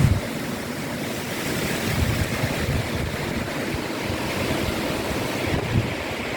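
Strong wind rushing through garden plants in a steady hiss, with gusts buffeting the microphone as low rumbles, strongest near the start, about two seconds in and near the end.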